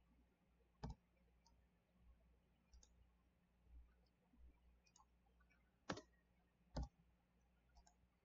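Sparse clicks of a computer mouse placing knife-tool cut points: one sharp click about a second in, two more close together near six and seven seconds, and fainter ticks between, over a faint low hum.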